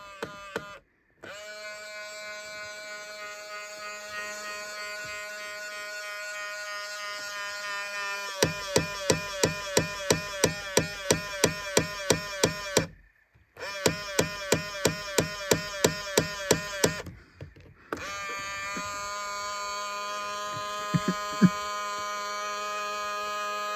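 2000 Ford Explorer power side-mirror motor running with a steady high whine. Partway through, the whine takes on a rhythmic clicking, about three to four clicks a second. It stops briefly twice, then goes back to a steady whine.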